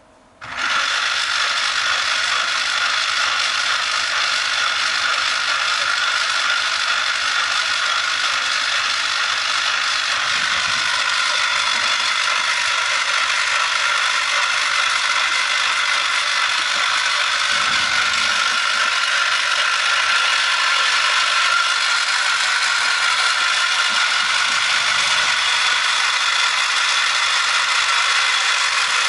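A 9V RC car motor, driven by a pulse-width-modulated signal, switches on about half a second in and then runs steadily with an even whir and a faint steady whine on top.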